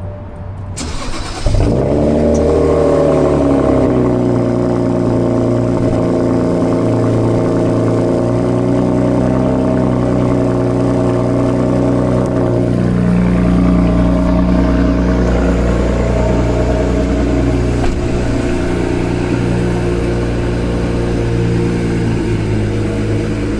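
BMW 335is twin-turbo inline-six (N54) starting: a brief crank about a second in, then it catches with a rev flare and settles into a steady fast idle.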